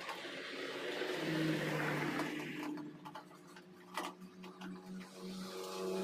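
Small electric motor whirring in runs, a power screwdriver backing out the screws of a microwave oven's cover, with a few sharp clicks about four seconds in.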